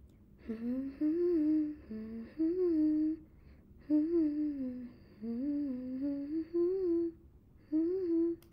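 A woman humming a slow, wandering melody, in three phrases with short breaks between them.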